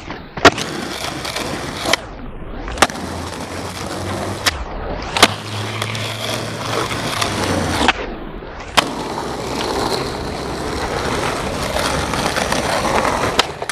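Skateboard wheels rolling on rough asphalt, with several sharp clacks of the board's tail popping and the deck landing during flatground tricks; the loudest clack comes about half a second in.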